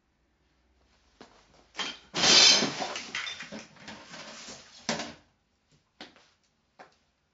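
A loud crash about two seconds in as a person falls onto the floor among stacked household clutter, knocking things over. Clattering follows for a few seconds, with a sharp knock near the end of it and a couple of small knocks as things settle.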